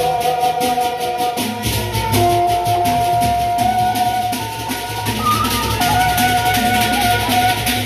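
Sasak gendang beleq gamelan playing: a bamboo flute carries a held melody that steps between a few notes, over a fast, steady beat of cymbal strokes and large barrel drums.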